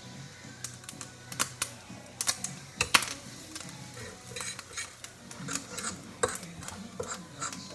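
Cutlery clinking and clicking against kitchen dishes in irregular strokes, the loudest about three seconds in.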